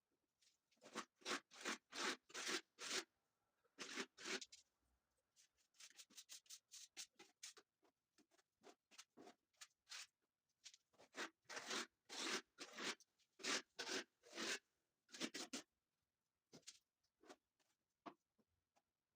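Putty knife spreading finishing filler on a plastered wall, a series of short scraping strokes in quick runs of several a second, with pauses between runs.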